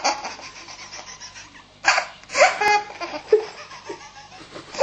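A baby laughing hard: breathy belly laughs in several separate bursts, the loudest about two seconds in.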